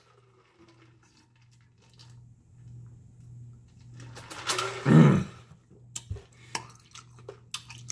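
A man gulping water from a large plastic jug, with faint swallowing sounds, then a loud open-mouthed exhale about five seconds in as he comes up for air. A few sharp clicks and knocks follow near the end.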